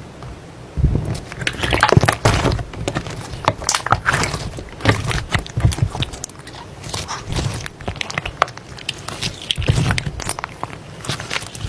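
Slime being squeezed and poked by hand, giving irregular crackling and popping clicks.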